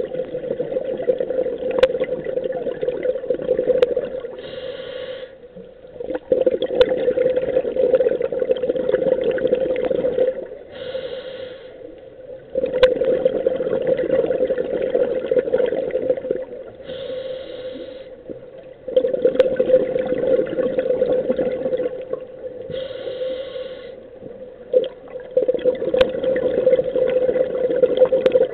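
Scuba diver breathing through a regulator underwater: a short hiss of inhalation, then several seconds of bubbling exhaust, repeating about every six seconds, five exhalations in all.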